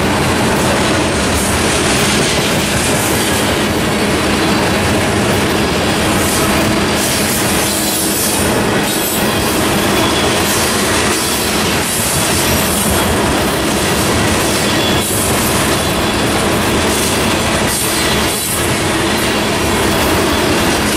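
CSX freight train's cars rolling past at close range: a loud, steady rumble and rattle of steel wheels on the rails.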